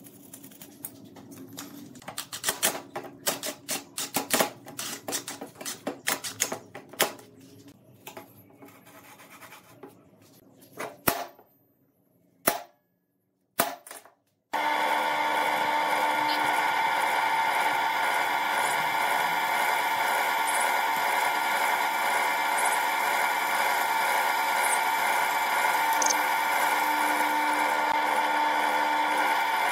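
Metal clicks and knocks as nuts and bolts are fitted on a steel angle bracket. After a brief silence about halfway through, a drill press starts a steady run as its bit drills through a flat steel bar.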